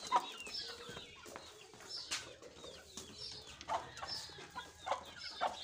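Domestic hens clucking: a string of short calls, some sliding down in pitch.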